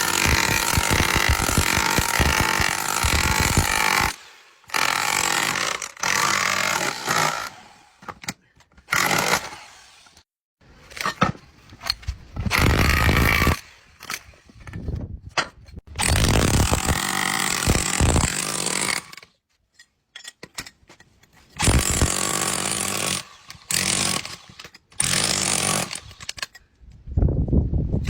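A power tool running hard in stretches of a few seconds, each starting and stopping abruptly, while a 7.5 kW electric motor is dismantled for its copper.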